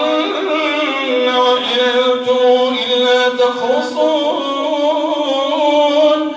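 A man's melodic Quran recitation in Arabic, leading the Taraweeh prayer: one voice drawing out long held notes that slide and waver between pitches.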